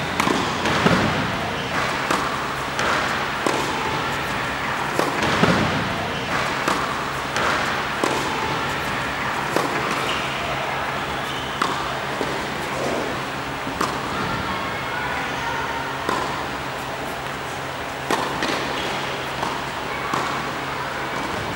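Tennis balls struck by rackets and bouncing on an indoor hard court: sharp pops every second or two, over a steady low hum.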